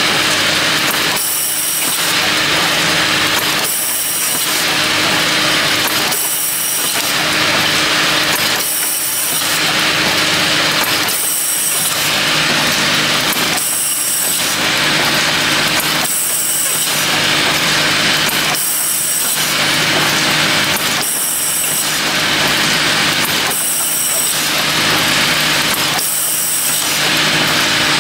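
Automatic rotary bottle filling and capping machine running: a steady mechanical whir and hiss with a constant low hum, broken by a brief dip about every two and a half seconds as it cycles.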